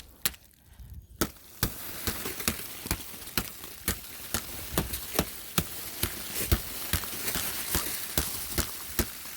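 Hard ice crunching and cracking in sharp, even strikes about two a second, over a steady crackling hiss.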